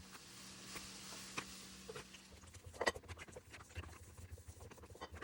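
Kitchen handling sounds during cooking: a faint steady hum, then from about two and a half seconds in irregular soft taps and clicks, with one sharper knock.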